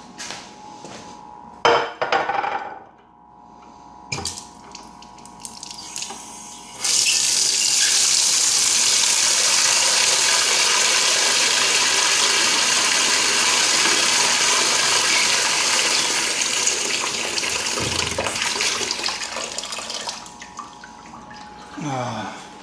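A few clattering knocks, then a water tap running into a sink for about thirteen seconds before it is turned off.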